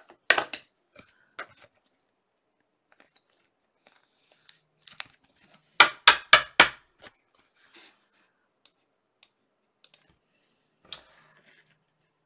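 Panini Chronicles Soccer card packs being opened and handled: a brief tearing of a pack wrapper and scattered light clicks and taps of the cards, with a quick run of four loud knocks about six seconds in.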